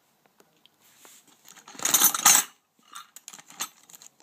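Metal hand tools (wrenches, pliers, a cross wrench) clattering and clinking in a plastic storage drawer as a hand rummages through them: a loud burst of rattling about two seconds in, then scattered single clinks.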